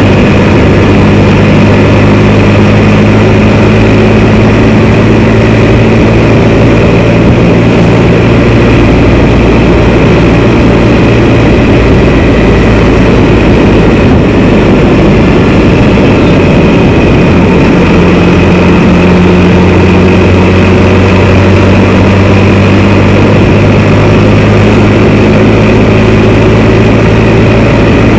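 Can-Am Spyder three-wheeled motorcycle engine running while riding, over a steady rushing noise; the engine note changes pitch a couple of times, about a third and two-thirds of the way through, as the road speed changes.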